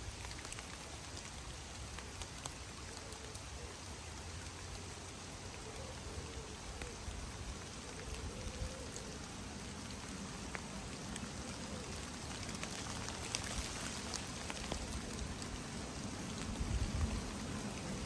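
Steady rain falling onto a river's surface and the bankside leaves: an even hiss sprinkled with countless small drop ticks, with a brief low rumble near the end.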